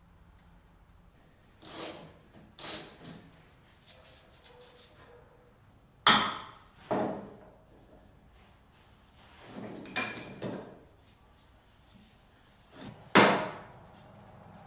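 A handful of separate knocks and clunks of tools or parts being handled, about six in all, the loudest about six seconds and thirteen seconds in.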